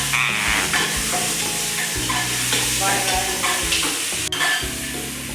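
Pieces of goat leg meat sizzling and frying in a pot with spices while being stirred.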